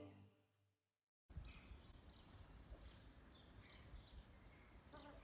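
Near silence: after about a second of dead silence, faint barn ambience with a few faint bird chirps.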